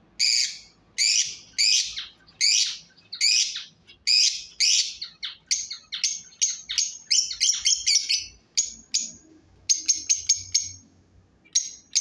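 Lovebirds calling: loud, high-pitched chirps, about two a second at first, then shorter, sharper notes coming in quick runs through the second half.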